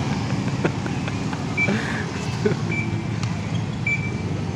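Road traffic: steady low engine noise as a car passes, with three short high beeps a little over a second apart.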